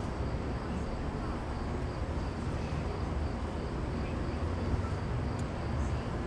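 Steady outdoor night ambience: a low rumble with a faint high hum over it, and a single faint click about five seconds in.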